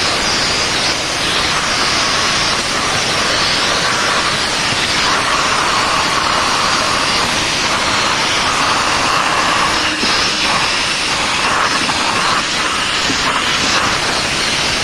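VacuFlo 560 central vacuum running, its hose nozzle sucking air with a loud steady hiss whose tone shifts now and then as the nozzle moves over surfaces.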